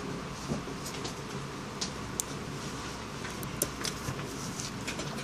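Soldering a SIM card slot onto a phone circuit board: scattered sharp little ticks and crackles from the soldering iron tip and metal tweezers at the slot's contacts, over a steady low hiss.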